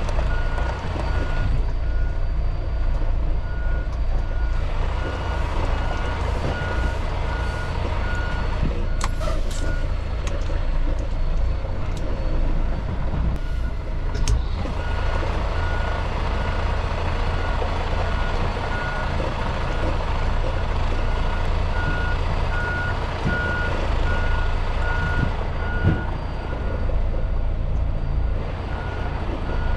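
Semi truck's reverse backup alarm beeping at a regular pace over the low rumble of its diesel engine, as the truck backs into a tight parking spot. The beeping stops for a few seconds about ten seconds in, then starts again, and there are two short hisses around that pause.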